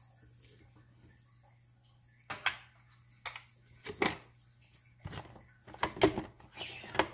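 Plastic blender jar and lid being handled: about six separate clacks and knocks over the last few seconds as the lid is fitted and the jar, full of soaked rice, is set on its base, with the motor not yet running. A low steady hum lies underneath.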